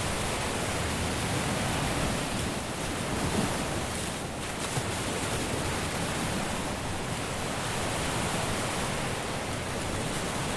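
Caribbean surf washing onto a beach: a steady rush of breaking waves that swells and eases slightly, with no single crash standing out.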